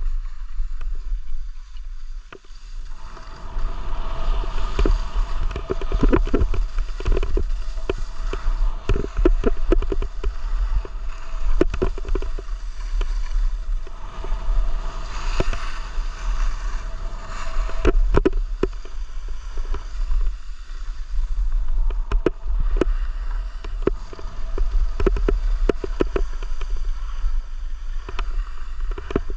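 Skis scraping and carving over groomed hardpack snow while skiing downhill, picking up about three seconds in, with wind rumbling on the camera microphone.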